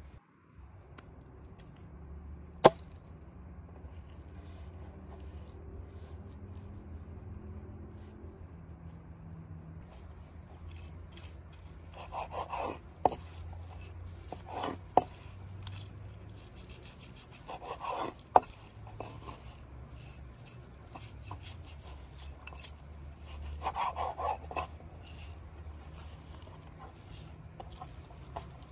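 A knife slicing a slab of raw beef on a wooden cutting board in four short bouts, with sharp taps of the blade on the board. A single sharp knock comes about three seconds in, over a steady low rumble.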